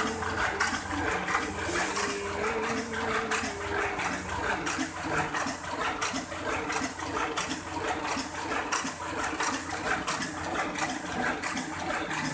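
Heidelberg GTO sheetfed offset press running in production, a steady mechanical clatter with evenly repeating clicks as its rollers turn and sheets feed through.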